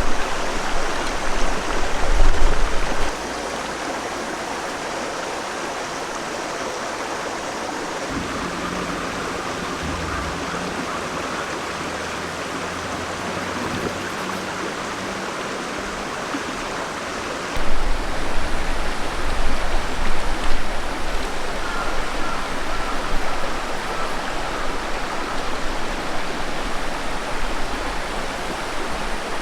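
Summer river flowing: a steady rush of water, with a low rumble in the first few seconds and again from a little past halfway.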